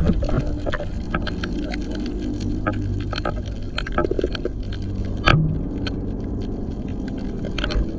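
Underwater sound picked up by a submerged camera: a steady low rumble with many scattered sharp clicks and pops, the strongest about five seconds in.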